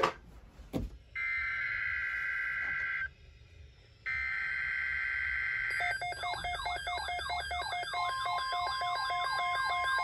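Two knocks, then two screechy digital bursts of NOAA Weather Radio SAME alert data from a Midland weather radio, with a quiet second between them. About six seconds in, the radio's warbling electronic alert siren starts, and a couple of seconds later the steady weather-radio attention tone joins it. Together they announce a severe thunderstorm watch.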